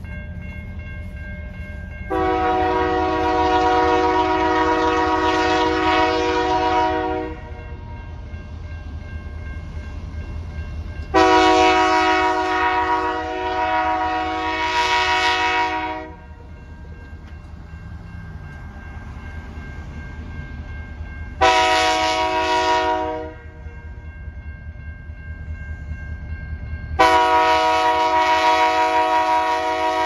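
EMD SD75I diesel locomotive's air horn sounding the grade-crossing signal: long, long, short, long, each blast a steady multi-note chord. The locomotive's low engine rumble runs underneath.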